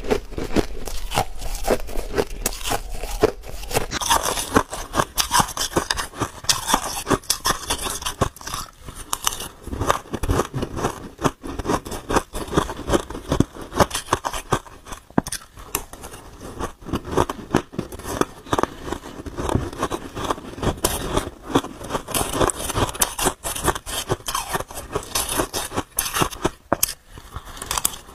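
Shaved ice being chewed close to the microphone: a fast, continuous run of crisp crunches, with a metal spoon scraping and scooping through the ice in a steel pot.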